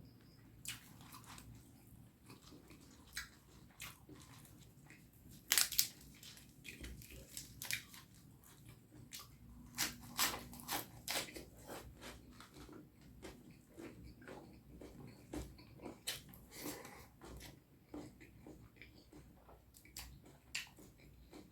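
A person chewing and biting a mouthful of curry and rice close to the microphone, with many sharp wet mouth clicks, the loudest about five and a half seconds in and a quick run of them around ten seconds in.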